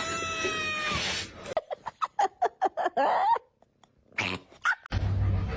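A cat yowling: one long drawn-out call that sags slightly in pitch, then a quick run of short, choppy meows. After a brief pause come two more short calls.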